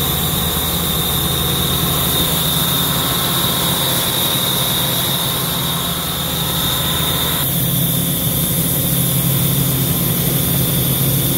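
Ingersoll Rand VHP400WIR portable diesel air compressor running steadily, a constant high-pitched whine over the low engine drone. About seven and a half seconds in the sound shifts, the low hum growing stronger.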